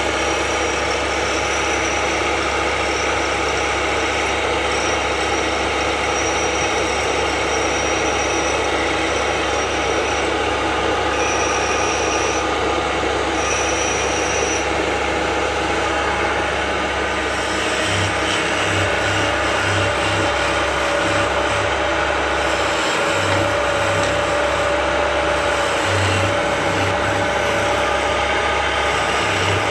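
Small belt-driven wood lathe running steadily, a hand chisel held against the spinning disc on its spindle and later cutting the wooden workpiece. A high squeal comes and goes during the first half, and the low hum wavers in the second half.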